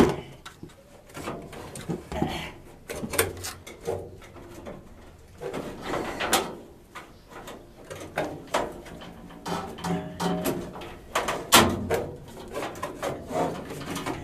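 Furnace filter and sheet-metal furnace housing being handled at arm's reach: irregular scraping, rustling and knocking as the filter is worked back into place past a spot where it catches.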